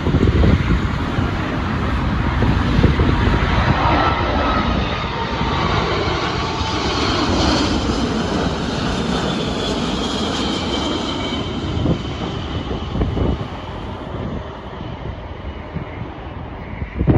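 Large jet airliner passing close by: a steady jet roar with an engine whine that glides down in pitch as it goes past, easing off in the last few seconds.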